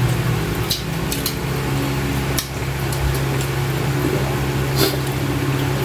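Close eating sounds: a few sharp smacks and clicks as grilled chicken is chewed and torn apart by hand, over a steady low hum.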